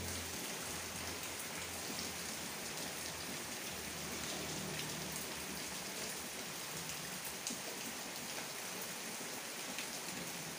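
Steady rain falling on a garden and yard: an even hiss with scattered sharp ticks of single drops.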